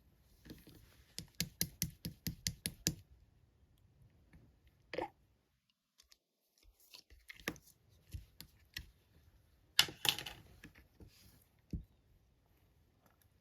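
Slime being pressed and stretched by hand, giving a quick run of sharp clicking pops, then a short squeak and more scattered pops and crackles.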